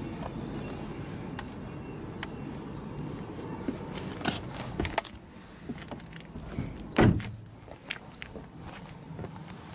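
Rustling and small clicks as someone climbs out of a Vauxhall Zafira Tourer. About seven seconds in comes the loud single thud of the car door being shut.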